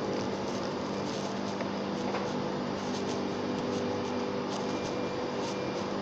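Industrial plant machinery running: a steady rushing drone with a low hum and a few steady tones over it.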